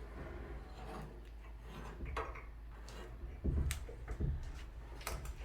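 Faint clicks and a couple of dull knocks from barn door handle hardware being handled and tightened with an Allen bit.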